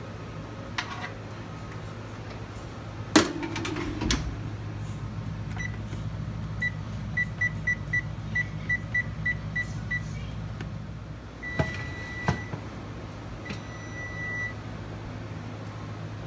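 Frigidaire electric range's control panel beeping as its keys are pressed to set a few more minutes: a quick run of short beeps, then two longer beeps. A clatter and a thump about three and four seconds in come before them.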